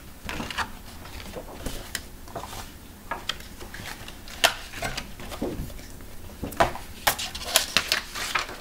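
Sheets of drawing paper being handled and swapped, rustling with many short crackles and taps; the loudest crackle comes about halfway through, with a quick flurry near the end.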